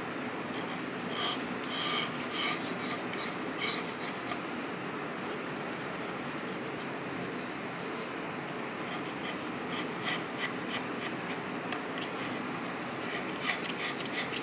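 Snap-off utility knife blade scraping the side of an unfired clay mug in short, repeated rasping strokes. The strokes come in bunches, with a quieter gap in the middle, over a steady background hiss.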